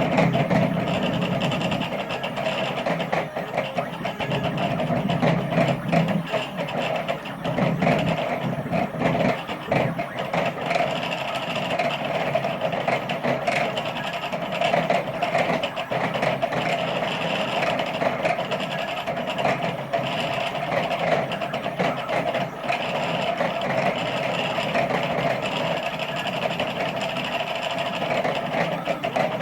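Sidewinder CNC machine running a carving program: its 400 oz-in bipolar stepper motors, driven by THB6064AH drivers at 4 amps, whine and buzz steadily as the axes shuttle back and forth, the lower pitch shifting with each change of move.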